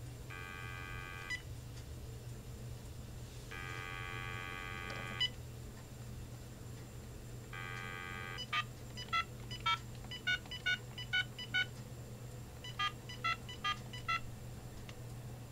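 Uniden EXAI7980 900 MHz cordless phone handset dialing an eleven-digit number in touch tones: a quick run of seven beeps, a short pause, then four more. Before the dialing come three longer electronic tones, and a low steady hum runs underneath.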